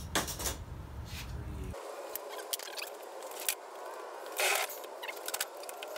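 Short scratchy strokes of a pen marking a line on thin masonite, then scattered scrapes and clicks of tools being handled on the board. A low background hum cuts off abruptly just under two seconds in.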